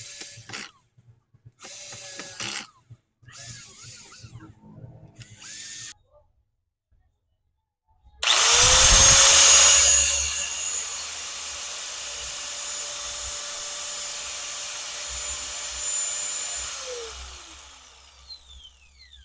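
Cordless drill-driver driving screws in four short bursts. About eight seconds in, a knock-off DeWalt angle grinder is switched on: it runs up to speed with a steady high whine, runs for about nine seconds on its freshly fitted carbon brushes, then is switched off and spins down near the end.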